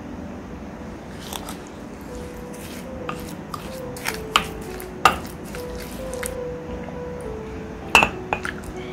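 A few irregular knocks and taps of kitchen utensils during food preparation, the loudest about halfway through and near the end, over background music with a simple melody.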